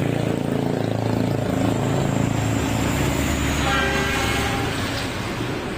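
A truck's engine running as it drives past close by, with a short horn blast of about a second just before four seconds in.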